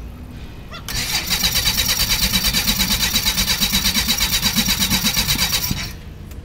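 Beechcraft Musketeer's engine being turned over on the starter for about five seconds, a steady rapid chugging of about nine pulses a second that starts and stops abruptly. The engine does not fire.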